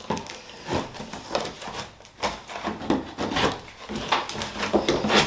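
A cardboard box being opened and unpacked: irregular rustling and scraping of cardboard and paper packing, with light knocks.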